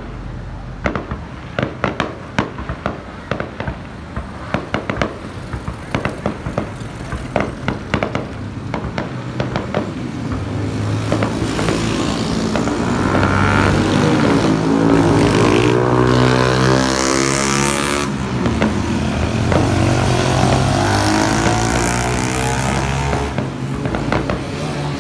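Aerial fireworks bursting in quick, uneven bangs and crackles. About halfway through, a pickup truck drives past close by: its engine and tyres swell to the loudest sound and drown the bursts, then fade, and the bangs come through again near the end.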